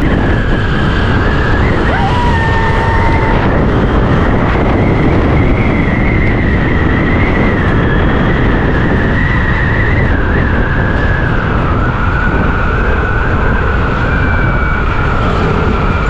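Motorcycle riding along a road: heavy wind rush on the microphone, with a steady engine whine that drifts slowly up and down in pitch.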